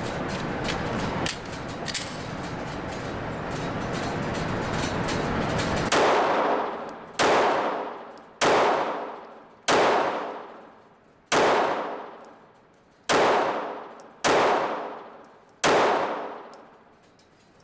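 Glock 26 9mm subcompact pistol firing eight single shots with ball ammo, about one every second and a half, each cracking out sharply and dying away over about a second, all without a stoppage. Before the shots there is a loud, steady rush of noise with scattered small clicks.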